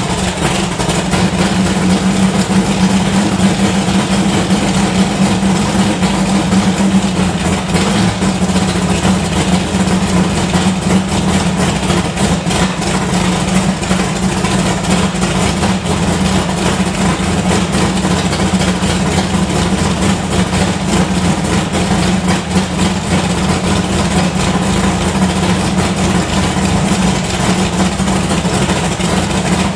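Carbureted big-block Chevrolet V8 in a 1981 Malibu drag car, idling steadily.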